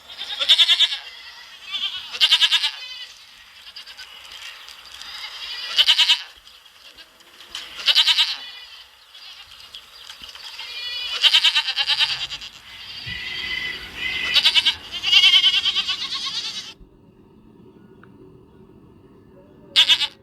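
Goats bleating repeatedly, loud wavering calls of about a second each, some close together or overlapping. Near the end the background changes suddenly to a low steady hum, and one more bleat follows.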